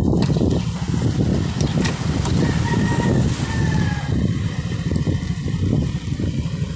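Wind rumbling on the microphone of a moving rider, with a vehicle engine running underneath.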